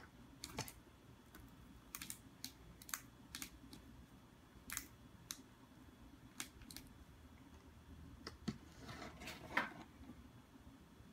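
Light, irregular taps and clicks of a cat's paws and claws on a cardboard box as it pats and nudges a cucumber across the box top, with a quicker flurry of taps about nine seconds in.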